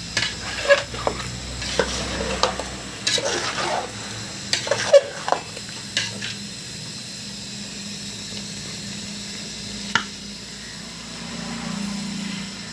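Chicken curry being stirred in a pot, a spoon scraping and knocking against the pan over a steady sizzle of frying masala. The scrapes are busy for the first half, then stop, with one clink about ten seconds in.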